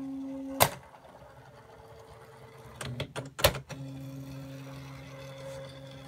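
Panasonic KX-W50TH thermal typewriter printing from a computer: a steady motor hum as the print head runs along a line, cut off by a sharp click just after half a second, then a cluster of clicks around three seconds, after which the steady hum starts again.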